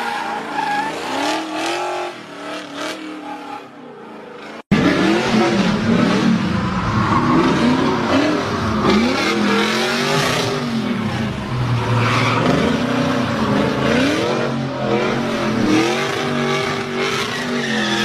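Pontiac Firebird's engine revving hard and bouncing off its rev limiter during a smoky drift burnout, its pitch climbing and dropping again every second or so, with the rear tyres squealing. The sound jumps abruptly louder about five seconds in.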